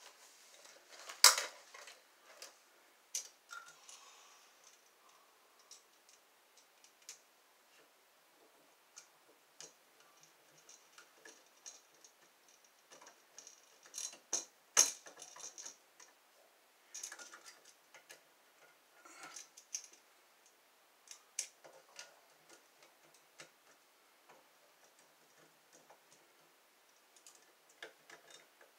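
Scattered clicks, taps and light scrapes of a screwdriver working the screw terminals of a three-prong electrical outlet and the wires being looped around them, with a sharp click about a second in and another about fifteen seconds in.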